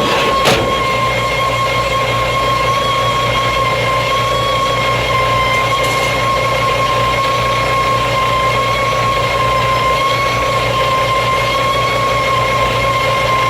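A machine running steadily, with a constant high whine over a low hum.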